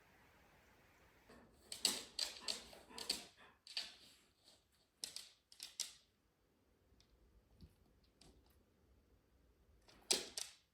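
A quick run of light clicks and rustles from objects being handled, about a second and a half in and lasting a few seconds, then one more short burst near the end.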